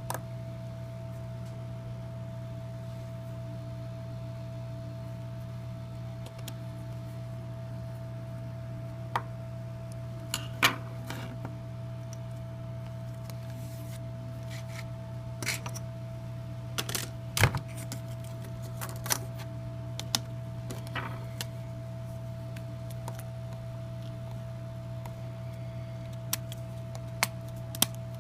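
Scattered light clicks and taps, a few of them sharper, about 10 and 17 seconds in, over a steady low electrical hum.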